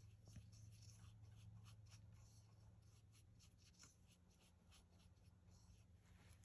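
Faint, scratchy strokes of a paintbrush scrubbing fluid acrylic paint round on sketchbook paper, blending magenta into a yellow blob, over a low steady hum.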